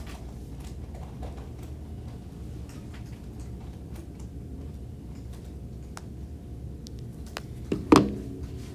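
Classroom background while students work quietly: a steady low hum with scattered faint clicks and taps. There is one sudden, louder knock with a brief ringing near the end.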